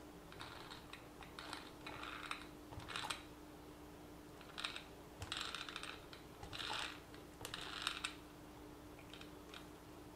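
Small plastic RC car drivetrain parts being handled during differential greasing, clicking and clattering in short bursts.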